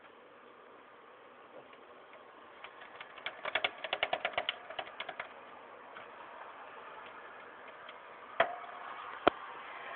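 Wire bars of a small hamster cage clicking and rattling, with a hamster inside: a quick run of clicks, about seven a second for two seconds, then two single sharp clicks near the end.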